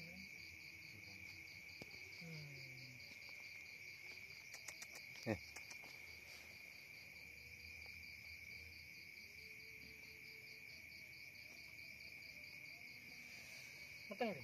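Night insects, most likely crickets, chirping steadily in a high buzz with a fast pulsing trill above it. About five seconds in there are a few soft clicks and then a short, loud call that falls quickly in pitch.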